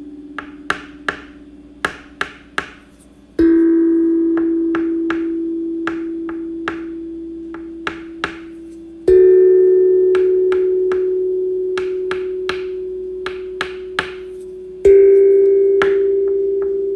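A ringing tone struck anew three times, about every six seconds, each strike a little higher in pitch and slowly fading, with short sharp clicks or taps at an uneven pace throughout.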